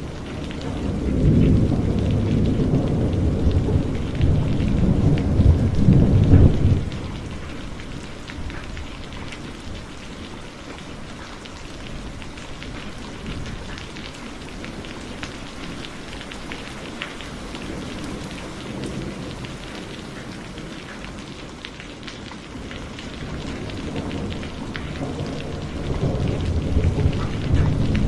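Heavy rain falling steadily, with many fine drop ticks. Thunder rumbles low and loud in the first several seconds, then stops suddenly. A second roll of thunder builds near the end.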